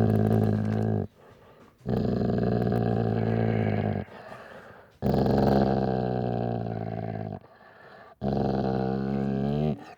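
A dog growling in long, low, steady growls of two to three seconds each, with short pauses between. One growl ends about a second in, and three more follow.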